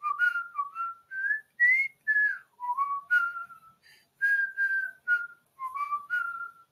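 A person whistling a tune: about a dozen short notes, some sliding up or down in pitch, that stops just before the end.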